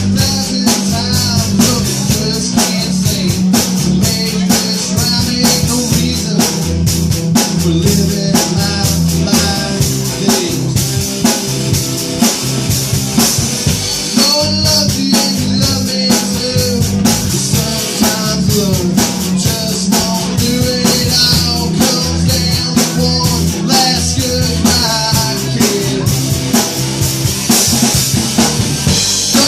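Live band playing an instrumental section: a drum kit keeps a steady beat with bass drum and snare under a lead line of bending, gliding notes.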